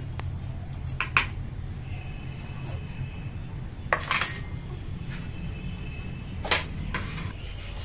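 A metal spatula and stainless-steel bowls clinking and scraping together in a few sharp metallic knocks: about a second in, near four seconds, and around six and a half seconds, over a steady low hum.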